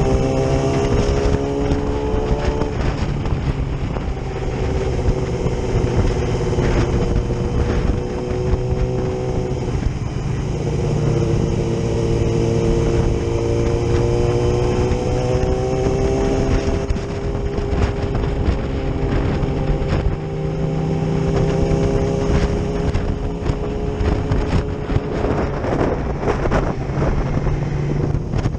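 Yamaha R6 sportbike's inline-four engine running at road speed, its pitch drifting up and down with the throttle and dropping briefly about ten seconds in before climbing again.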